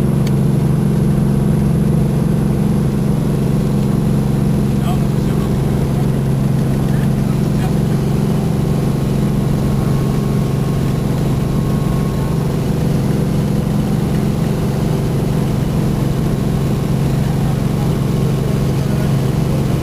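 Helicopter in flight: a loud, steady drone of engine and rotor that does not change.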